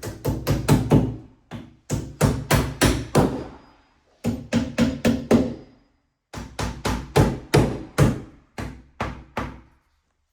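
Hammer blows struck in quick runs of four to six, about four a second, each run broken off by a short silence.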